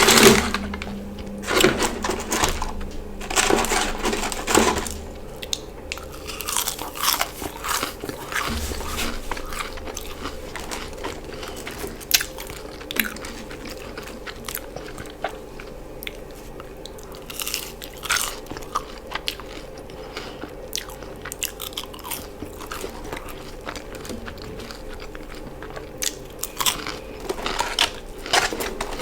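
Close-miked biting and chewing of Burger King fast food: loud crunchy bites for the first few seconds, then softer steady chewing with an occasional crunchy bite, over a faint steady hum.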